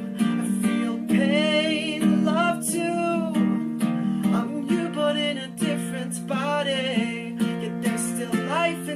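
A song: strummed acoustic guitar with a wavering sung melody over it.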